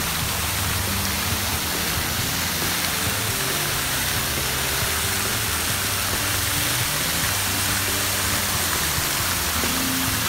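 Fountain jets spraying and splashing down into a pool, a steady rush of water, with music playing underneath.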